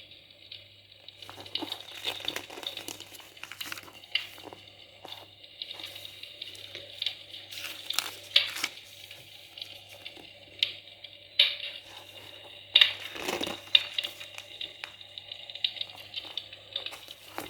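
Paper catalogue pages being handled and turned: scattered rustles, crinkles and clicks at irregular intervals, with a few louder page sounds, over a faint steady hum.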